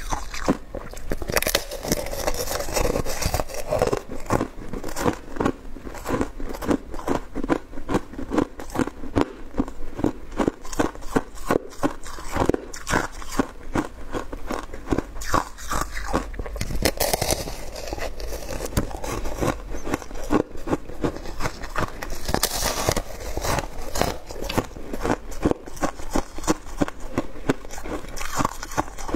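Shaved ice being bitten and chewed close to clip-on microphones: a dense, continuous run of crisp crunches.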